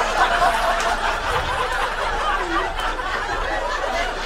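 Audience laughing steadily, many voices at once.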